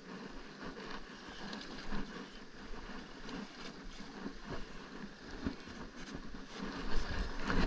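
Wind and sea noise on an open boat, with a shirt sleeve rubbing against the camera and handling bumps as the rod and reel are worked against a hooked fish; louder knocks come near the end.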